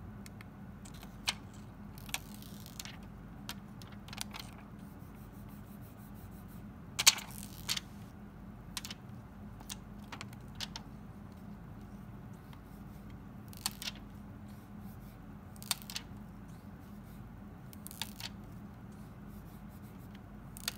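Scattered light clicks and brief rustles of a hand handling an iPhone 5, over a steady low hum; the sharpest click comes about seven seconds in.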